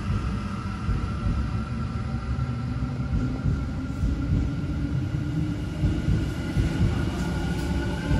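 Odakyu MSE 60000 series Romancecar electric train gathering speed past a station platform: the rumble of its wheels on the rails with a motor whine that slowly rises in pitch.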